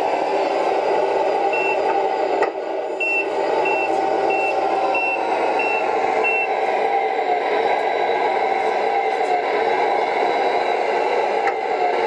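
Tamiya Scania R620 RC truck's sound unit playing a diesel engine running steadily, with a reversing beeper giving seven short high beeps, about one and a half a second, from about one and a half to six and a half seconds in. A single sharp click comes about two and a half seconds in.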